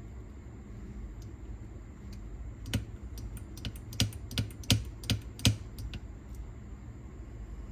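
A quick, uneven run of about ten sharp clicks and taps over some three seconds, starting a little under three seconds in: small parts or tools being handled while working on a cassette deck's tape mechanism.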